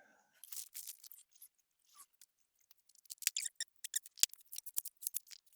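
Light metal clicks and scrapes from hand work on an LS engine's exhaust side while fitting gaskets, manifold and bolts. The clicks are scattered at first and come thick and uneven from about halfway through.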